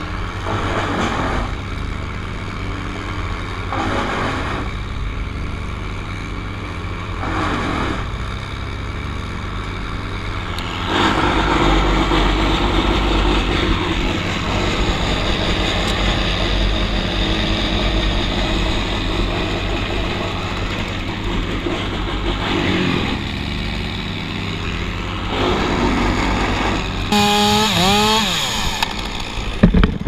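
Top-handle chainsaw running, with short revs in the first few seconds, then held at full throttle for about twelve seconds from around eleven seconds in as it cuts through the ash. Another stretch at high revs comes near the end, with a sliding whine.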